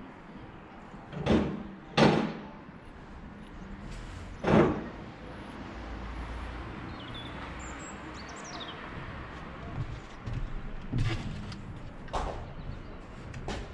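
Building stones knocking against each other as they are handled and set into a stone gable wall: three sharp knocks in the first five seconds, then a couple of lighter ones near the end.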